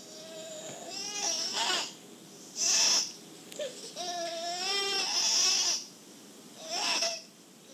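Infant crying in a string of fussy cries, the longest wavering for nearly two seconds in the middle, heard off an old cassette tape played through earbuds.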